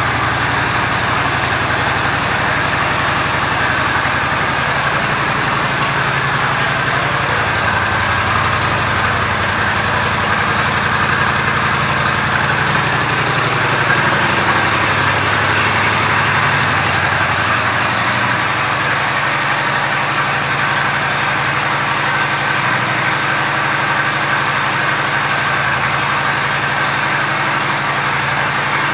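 Honda Shadow Spirit 750's V-twin engine idling steadily.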